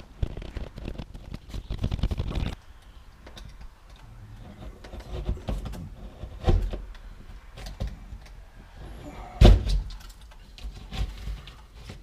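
Knife cutting through ceiling drywall: quick rasping strokes for the first two and a half seconds, then scattered scrapes and knocks as the cut is worked through, with one loud thump about nine and a half seconds in.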